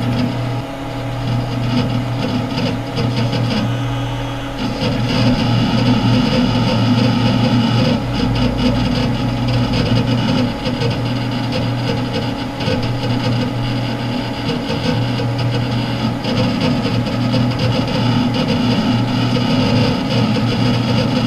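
Computer running after being switched on: a steady mechanical hum and whir of its motors and fans, growing louder and fuller about four and a half seconds in, then holding steady.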